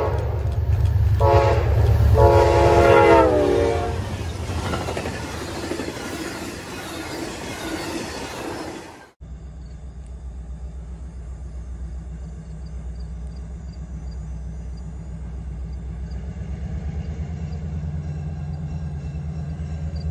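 Diesel locomotive air horn sounding as the train approaches: the tail of one blast, a short blast about a second in, then a longer blast that drops in pitch, over heavy low engine rumble and rail noise that fades out by about nine seconds. After a sudden cut, a distant diesel locomotive's engine drones steadily, slowly getting louder as it approaches.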